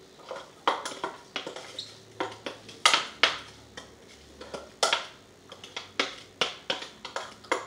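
Blended herbs being tapped and scraped out of a plastic food-chopper bowl into a mesh strainer: irregular light clicks and knocks, two or three a second.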